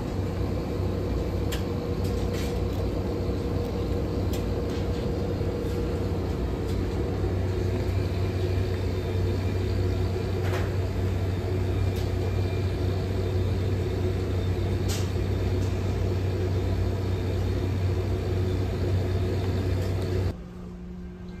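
Steady low machinery hum with a few light clicks and taps over it; the hum drops away abruptly near the end.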